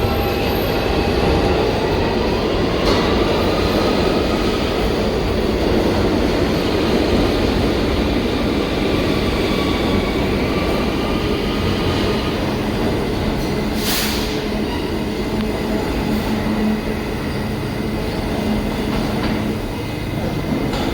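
New York City Subway R160 train in motion: a steady rumble of wheels on rail with a thin motor whine that rises and falls in pitch, and a sharp click about midway.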